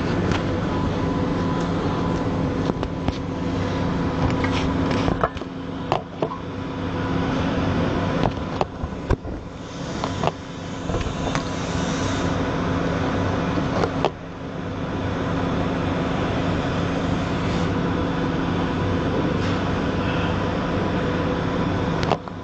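Ozen TIG welder running with argon shielding: a steady hiss and electrical hum. The sound breaks off and restarts several times with clicks between about five and ten seconds in, and dips briefly about fourteen seconds in.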